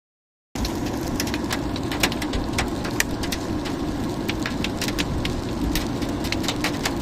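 Heavy rain falling, with frequent sharp taps of drops striking a hard surface over a steady hiss; it starts abruptly about half a second in.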